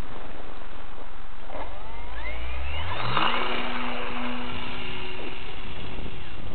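Model airplane's propeller motor speeding up, its pitch rising over about a second and a half, then holding a steady whine for about three seconds before it stops near the end, over a constant rushing noise.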